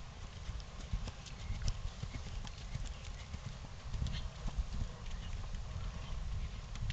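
A Thoroughbred gelding's hooves landing a jump and cantering on a dirt arena: a run of dull, uneven hoofbeats over a low rumble.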